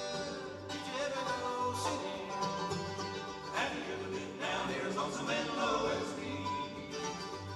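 Background music with singing and a steady beat, country or bluegrass in style.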